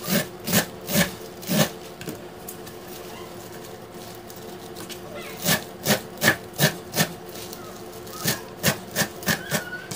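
Kitchen knife chopping waterleaf on a plastic cutting board: quick runs of sharp knocks, about four at the start, five around the middle and six near the end, with a pause of a few seconds after the first run. A steady low hum runs underneath.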